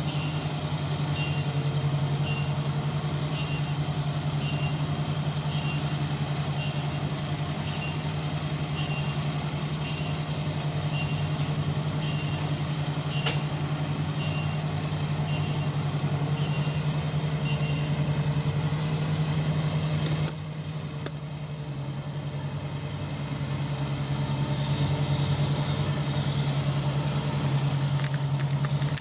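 ISEKI rice harvester's engine running steadily with a high warning beep repeating about every three-quarters of a second. The beeping stops after about 18 seconds. About 20 seconds in the machine drops quieter, then picks up again near the end.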